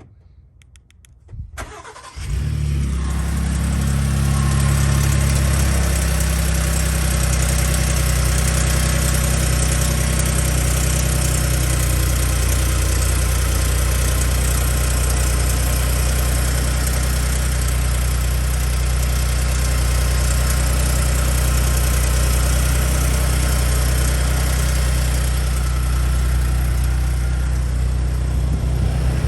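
Gen2 Ford Raptor's twin-turbo 3.5-litre EcoBoost V6 cold-starting: a few clicks, then it catches about two seconds in and settles into a steady idle. The owner hears a rattle on cold starts that could be the cam phasers, a known Gen2 Raptor issue, or the turbo actuators.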